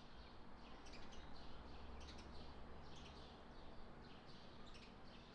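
Faint birds chirping, short high chirps about two or three times a second, over a low steady hum.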